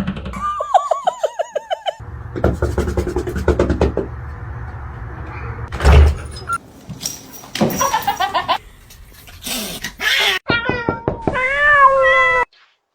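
Kittens meowing in quick runs of short, rising-and-falling calls, in a few abruptly cut stretches. A loud thump comes about six seconds in.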